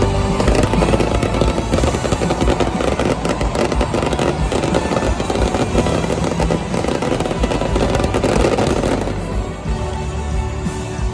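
Aerial stage fireworks crackling and popping in a dense, rapid spray over loud concert music. The crackle dies away about nine seconds in, leaving the music alone.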